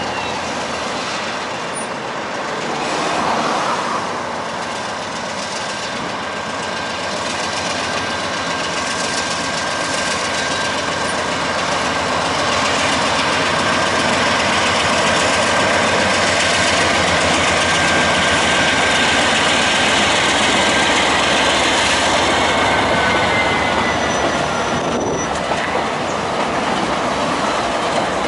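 Freight train of GE diesel-electric locomotives (C44-9W and ES44DC units, with an EMD GP50 trailing) pulling past under power: a steady mix of engine and rail noise that grows louder as the locomotives come alongside, with a thin high whine drawn out over it that falls in pitch near the end.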